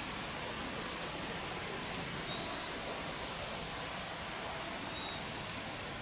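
Steady rush of flowing water, with a few faint, short high bird chirps over it.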